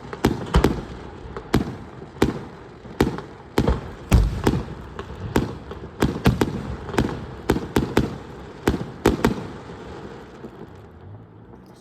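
Aerial fireworks bursting: an irregular string of sharp bangs, about two a second, the loudest with a deep boom about four seconds in. The bangs stop after about nine seconds.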